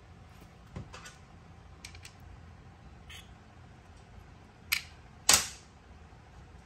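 Seal-protector inserts being pressed over the throttle-shaft seals of an R32 GTR individual throttle body, clicking into place: a few light clicks, then two sharp clicks about five seconds in.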